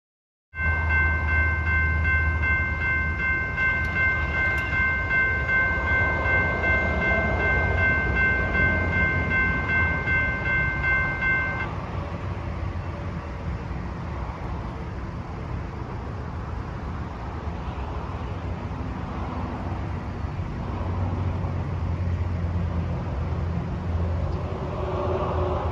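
Locomotive air horn sounding one long steady chord for about eleven seconds, then cutting off, over a continuing low rumble.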